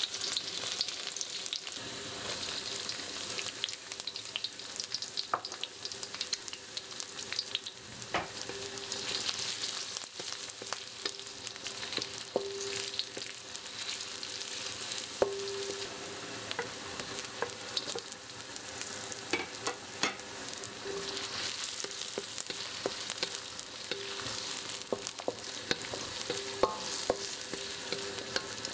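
Minced garlic, shallots and sliced chillies sizzling in hot oil in a steel wok, stirred with a spatula that clicks and scrapes against the pan, with short ringing tones now and then.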